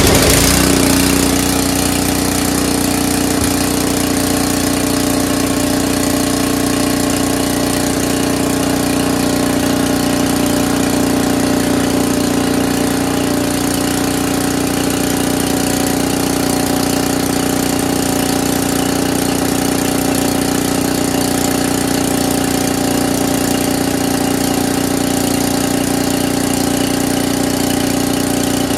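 Briggs & Stratton 6 hp Intek engine on a pressure washer, just started and running steadily on its own. The owner takes it to have low compression, likely from bad piston rings or piston.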